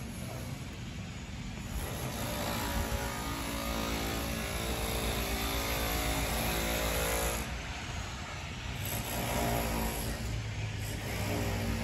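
Street traffic: passing car engines, one swelling and fading over several seconds, then another rising near the end, over a steady low rumble.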